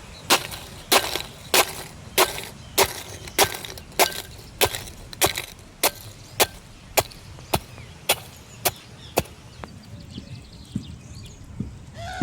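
Regular hard knocks of food being pounded or chopped by hand, about one and a half strikes a second, growing fainter and stopping about nine seconds in.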